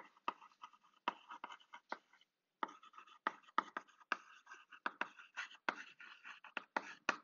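Chalk writing on a blackboard: a rapid run of short scratching strokes, with a brief pause about two seconds in.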